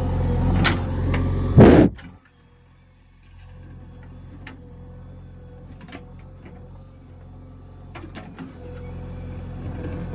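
JCB 3DX backhoe loader's diesel engine running loud and steady, with a sharp knock just before it cuts off abruptly about two seconds in. A much quieter engine hum with scattered clicks follows, building up again near the end.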